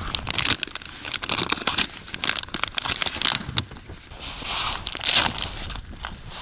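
Crinkling and rustling of plastic lure packaging with irregular small clicks, as soft-plastic jig lures are rummaged through and handled.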